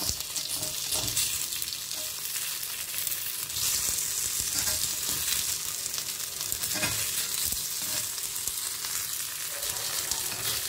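Peanut-and-potato balls sizzling steadily in hot oil in a cast-iron appam pan, with a few light taps and scrapes of a steel spoon against the pan as the balls are turned over.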